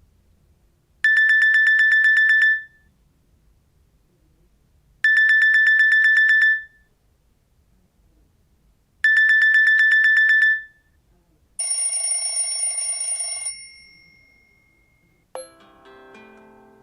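Nokia C2-02 ringtones played through the phone's speaker. Three identical bursts of fast, high-pitched pulsing beeps, each about a second and a half long and four seconds apart, are followed by a different, brighter ringing tone lasting about two seconds. Near the end a new melodic ringtone starts.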